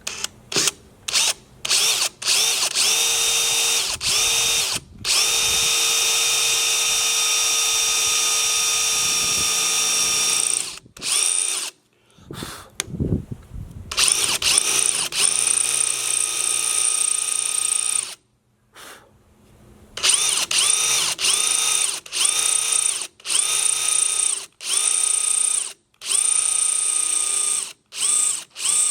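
Power drill run in repeated trigger pulls of about a second each, with one steady run of about five seconds early on. Its motor whine climbs in pitch as it spins up on each pull.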